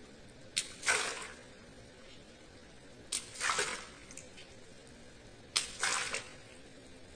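Small water balloons popped with a pin, three in turn about two and a half seconds apart: each a sharp pop followed by a short splash of water.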